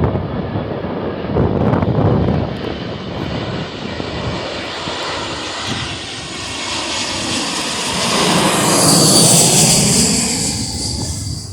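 A jet airliner passing close, its engines giving a loud, continuous rush. The sound swells to its loudest, with a high whine, about eight to ten seconds in, then falls away just before the end.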